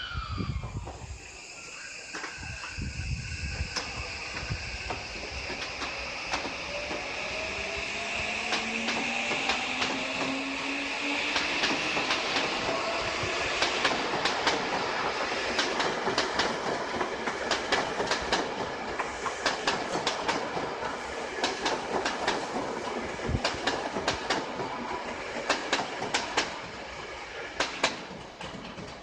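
Electric train running: a motor whine with several pitches rises as it speeds up, then rapid clicking of wheels over rail joints takes over.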